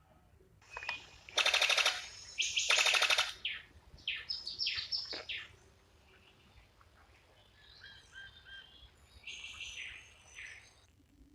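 Birds calling: two loud, fast rattling trills, then a quick series of falling notes, then softer short whistled chirps that stop shortly before the end.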